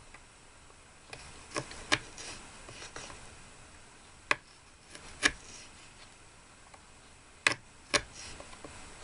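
About six light, sharp taps and clicks of small hard objects being handled, some coming in pairs about half a second apart, over a quiet background.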